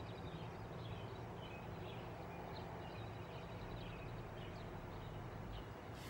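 Outdoor ambience: several birds chirping and calling faintly over a steady low background hum.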